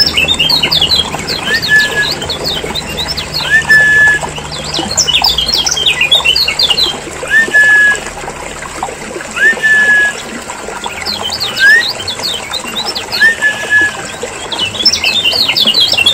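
Kecial kuning, a Lombok yellow white-eye, chattering in busy, noisy bursts of fast high call notes, with a short rising whistle repeated about every two seconds. It is a recorded lure call (pikat) for drawing in wild white-eyes or prompting caged ones to sing.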